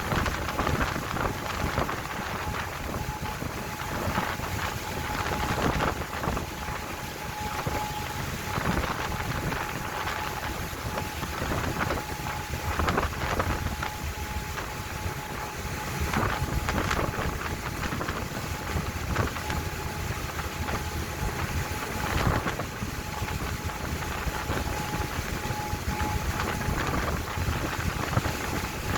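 Strong wind buffeting the microphone and rough sea water rushing around a boat, rising and falling in gusts. A faint steady whine runs underneath throughout.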